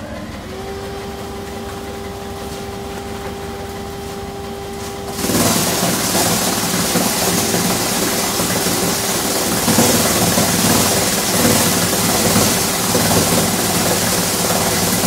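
Polymer Systems plastics granulator running: a steady motor hum with a clear whine at first, then, about five seconds in, a much louder, rough grinding noise as scrap plastic goes in and is chopped by the rotor.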